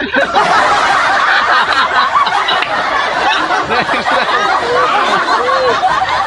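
A group of young men laughing together, many voices overlapping.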